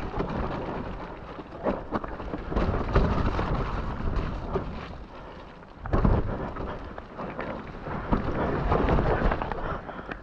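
Mountain bike ridden fast down a wet, muddy forest trail: a steady rumble of wind and tyre noise on the action camera's microphone, with sharp knocks and rattles as the bike hits roots and bumps, the heaviest jolt about six seconds in.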